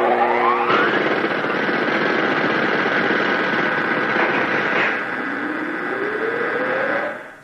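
Dense, noisy electronic sound effects from a parody TV station ident. A tone rises through the first second, a few steady high tones sit over the noise, and another tone rises slowly over the last two seconds before the sound fades out.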